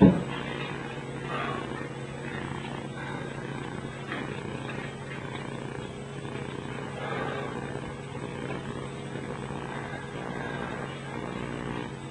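A steady, low mechanical hum, with one sharp thump right at the start.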